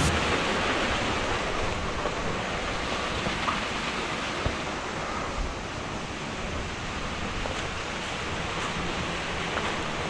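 Steady rushing of a mountain stream's water, an even unbroken noise.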